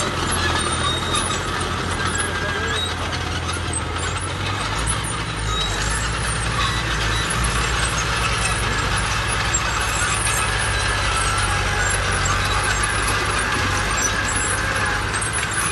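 Diesel tractor engines running steadily under load while ploughing, chiefly a Fiat 605 C crawler tractor working close by, with other crawler and wheeled tractors behind it.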